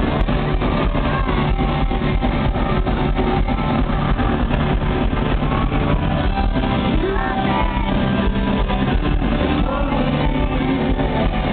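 Live indie rock band playing loudly: a male singer over electric guitars and drums keeping a steady beat.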